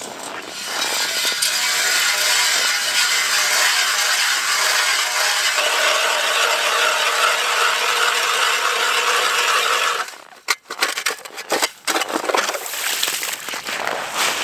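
Hand-cranked ice auger's spiral blades cutting down through the ice, a steady crunching grind that stops about ten seconds in as it breaks through. After that come a few irregular scrapes and knocks as the auger is pulled out of the hole.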